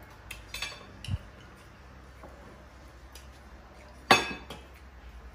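Spoons and dishes clinking at a dinner table: a few light clicks in the first second, then one loud clink with a short ringing tail about four seconds in.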